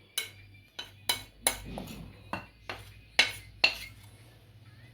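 A kitchen utensil clinking and knocking against a mixing bowl about nine times at an uneven pace, as cake batter is worked by hand while flour is added.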